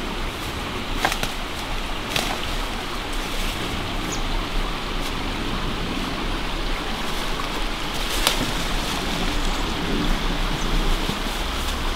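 Forest stream running steadily, with a few sharp snaps about a second in, about two seconds in, and again about eight seconds in.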